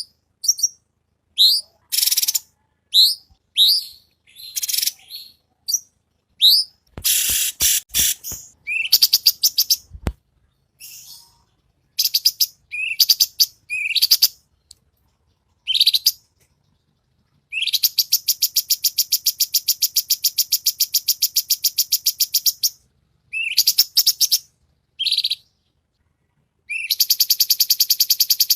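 Cucak cungkok singing: a series of short, sharp whistled notes, then a long, very rapid trill about two-thirds of the way in and another near the end. A few clicks and a single low thump are heard in the first half.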